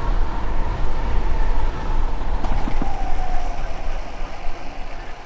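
Wind buffeting the microphone while riding an e-bike at about 24 mph, with the electric motor's thin whine falling slowly in pitch as the bike slows.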